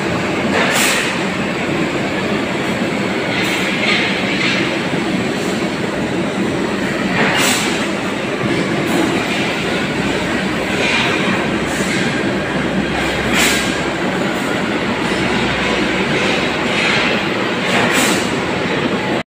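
Heavy diesel truck engine running steadily, with a short sharp noise every few seconds.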